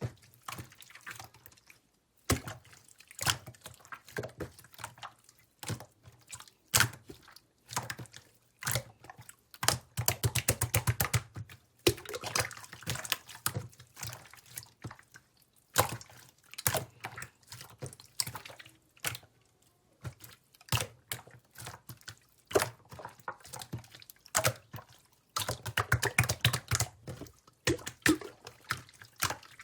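Slime being squished and played with by hand: irregular wet clicks and pops, with denser runs of rapid crackling about ten seconds in and again near the end.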